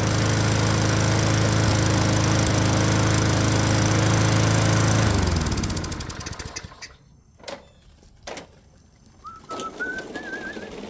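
Toro GTS Recycler mower's Tecumseh 6.5 hp single-cylinder engine running steadily on a new aftermarket carburetor, then shut off about five seconds in and winding down. Two light clicks follow, and a bird sings near the end.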